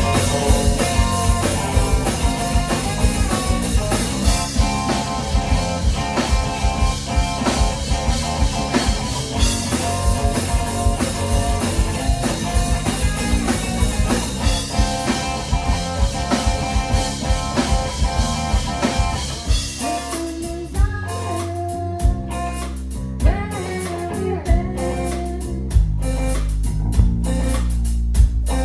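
Live rock band of electric guitar, bass guitar and drum kit playing an instrumental passage of a song. About two-thirds of the way in, the full band with its cymbals thins out to sparser, separately struck guitar and bass notes.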